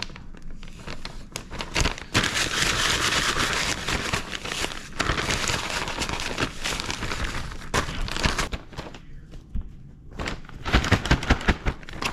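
Plastic bag crinkling and rustling as dry breading mix of seafood mix and panko crumbs is shaken in it. Near the end comes a quick run of thumps.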